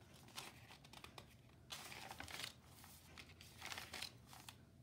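Faint rustling and crinkling of wrinkled paper as a handmade journal's pages are turned and smoothed by hand, in a few short bursts.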